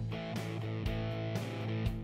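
Background music with a steady beat, about two beats a second, laid over the ride.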